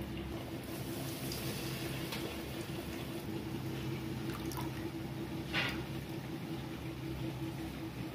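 Wet flour batter dripping and squishing as hands dip a bread patty into a steel bowl and lift it out, with one sharper drip or tap about five and a half seconds in. A steady low hum runs underneath.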